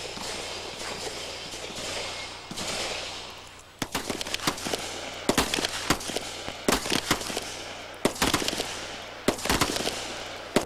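A string of pistol shots fired from the prone position, starting about four seconds in and coming about once a second, each a sharp crack.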